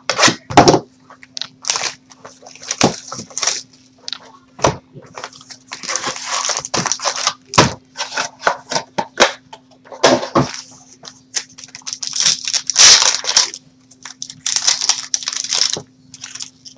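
Plastic wrapping crinkling and tearing, with scattered sharp clicks and taps of cardboard, as a sealed box of trading cards and its packs are opened. The crinkling comes in bursts about six, twelve and fifteen seconds in.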